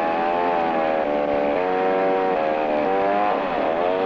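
Two-stroke chainsaw running at speed while cutting brush and small trees, its engine pitch shifting up and down in steps as the load changes. About three and a half seconds in it dips sharply and climbs back.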